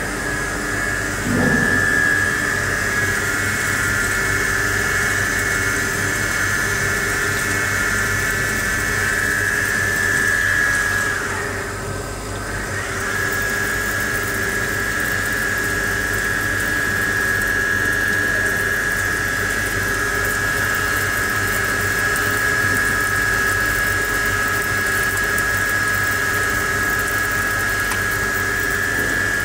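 Medium-speed wire EDM machine cutting a steel mould plate: a steady high whine from the wire drive over the hiss of milky coolant pouring onto the cut, with a low hum underneath. About twelve seconds in, the whine drops in pitch, cuts out for about a second, then rises back to the same note.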